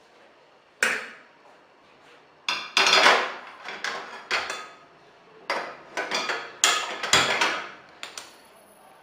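Pressure cooker being handled: a string of sharp metal clanks and knocks from its body and lid, about ten in all, irregularly spaced.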